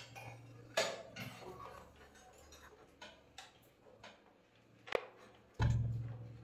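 Scattered small metallic clicks and taps as a water heater's stainless-steel heating-element flange is fitted back into the tank and its wires are handled, with a louder dull thump about five and a half seconds in.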